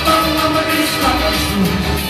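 Loud amplified live music: a man singing into a microphone, holding long notes over the musical accompaniment.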